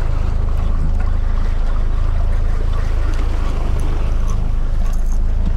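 Outboard motor running steadily with an even low drone, pushing the boat along while trolling. Wind and water noise wash over it.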